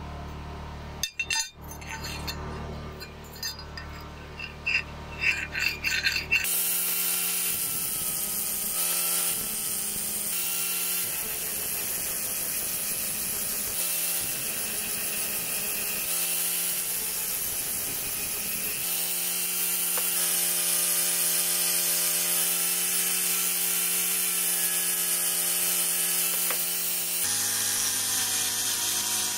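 Clinks of a steel blade being handled against metal, then, about six seconds in, a handheld electric angle grinder running with a steady whine as it grinds a chopper blade forged from an old file. The pitch shifts slightly twice.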